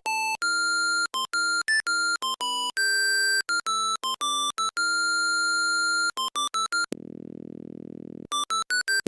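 Nokia 3310 monophonic ringtone: a melody of short and held bright beeping notes. About seven seconds in, the notes give way for just over a second to a lower, quieter pulsing buzz, then the beeping melody resumes.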